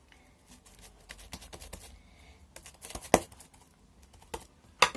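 Small clicks and taps of slime and a pot being handled on a table, with a sharp knock about three seconds in and another near the end as the pot is put down.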